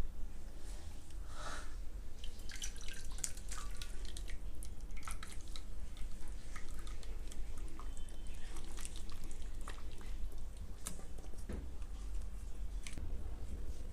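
Water dripping and splashing in small, irregular drops, over a low steady hum.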